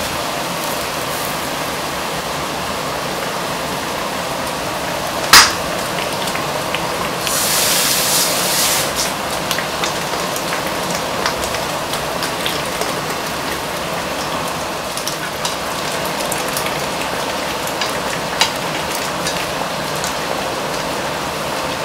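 Frying pan of beef rouladen sizzling in their braising liquid on the hob: a steady hiss with small crackles and pops. A sharp knock about five seconds in is the loudest sound, and the sizzle rises louder for a couple of seconds just after.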